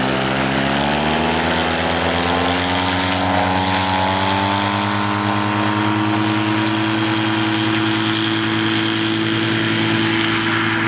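Skycycle ultralight trike's engine and pusher propeller run up to full power for takeoff. The pitch rises over the first couple of seconds, then holds steady and loud through the takeoff roll and liftoff.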